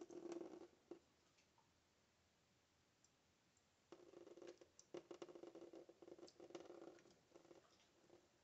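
Thin trickle of tap water splashing into a stainless steel sink, ringing faintly and coming and going, with small clicks of a cat lapping the water.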